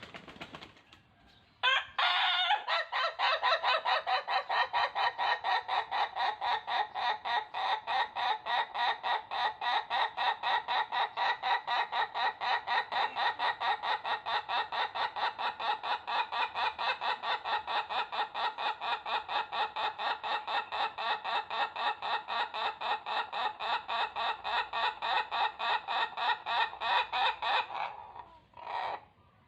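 Ayam Ketawa (Indonesian laughing chicken) rooster crowing its laugh-like crow: one long unbroken run of quick, evenly repeated notes, about four a second, lasting some twenty-five seconds.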